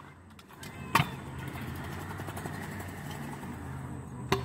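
Stunt scooter wheels rolling on smooth concrete with a steady low hum, with two sharp clacks of the scooter hitting the concrete: one about a second in, one near the end.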